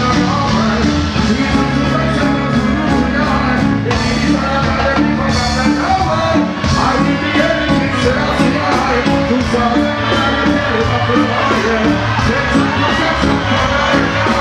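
Live reggae music played loud through a concert sound system, with a steady beat and bass line and a vocalist chanting into a microphone over it.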